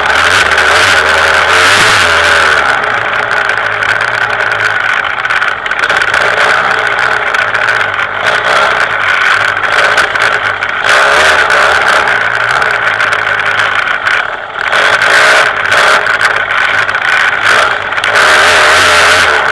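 KTM 200 EXC 200cc two-stroke enduro engine being ridden hard along a dirt trail, the revs rising and falling as the throttle is opened and closed. It eases off briefly about fourteen seconds in, then picks up again.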